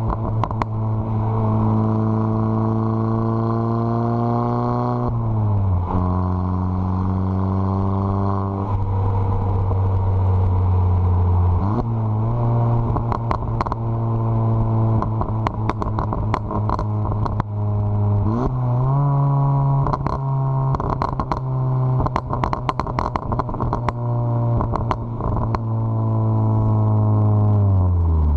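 Volkswagen Mk7 GTI's turbocharged 2.0-litre four-cylinder running through a catless downpipe. The engine note holds fairly steady, shifts in pitch several times, and falls away near the end. A stream of crackles and pops from the exhaust tune sounds throughout.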